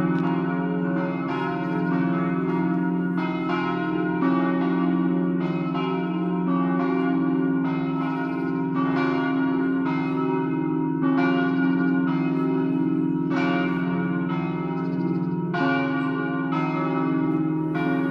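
Church bells swinging in the tower, ringing a festive peal (doppio): overlapping strokes about twice a second over a continuous low hum from the bells.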